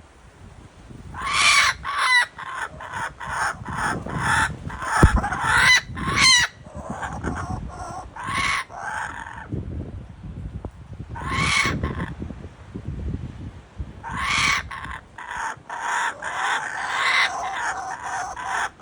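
Kookaburra calling: a long run of rapid, chuckling staccato notes that swell into louder bursts every few seconds.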